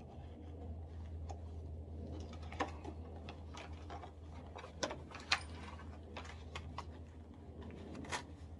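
Scattered small clicks and taps of a box of .22 rimfire cartridges being handled, its plastic tray slid out and rounds picked from it, with a low steady hum underneath.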